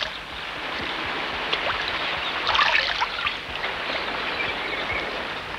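Sea surf washing over shoreline rocks, a steady hiss of moving water that swells louder about two and a half seconds in.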